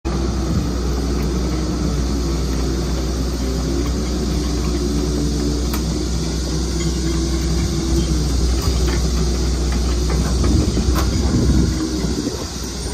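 Doosan DX225LC crawler excavator's diesel engine running steadily with a deep hum, with a couple of sharp metallic clicks about six and eleven seconds in.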